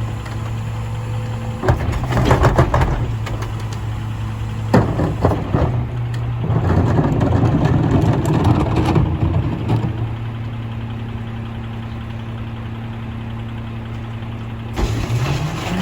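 Mack LR McNeilus rear-loader garbage truck's diesel engine idling, with knocks and a few seconds of louder rough clatter in the first half. Near the end the engine speed rises.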